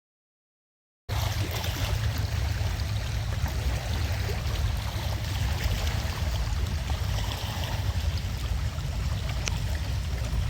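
About a second of dead silence at an edit, then a steady rushing noise with a heavy low rumble, uneven and fluttering throughout.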